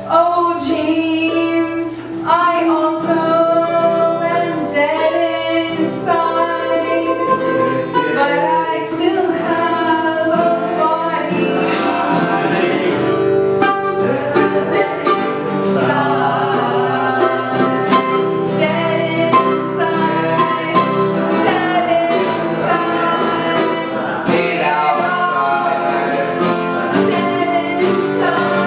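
Music with singing over a plucked-string accompaniment, like a guitar, playing steadily.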